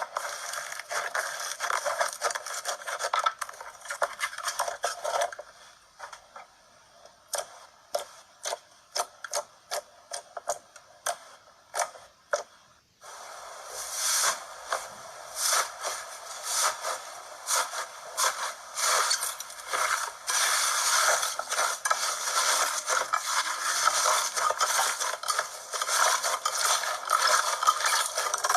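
Slime being handled and squeezed: dense crackling, scraping and small pops, thinning to scattered single clicks for several seconds, then a dense run of crackling and scraping again from about halfway through.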